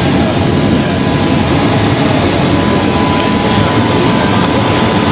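Steady loud rumble of a parked jet aircraft's turbines, with a thin high whine held on one pitch throughout.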